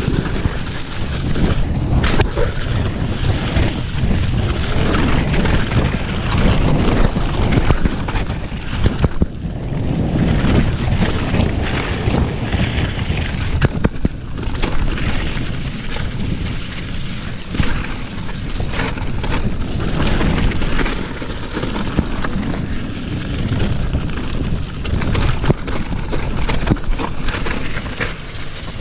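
Wind rushing over the helmet- or body-mounted camera microphone while a mountain bike descends a rough downhill trail. The tyres rumble and the bike rattles with frequent short knocks from the ground.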